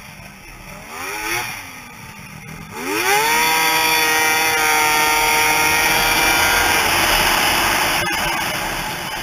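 Snowmobile engine blipped briefly, then revved hard about three seconds in and held at high revs as the sled accelerates, easing off near the end.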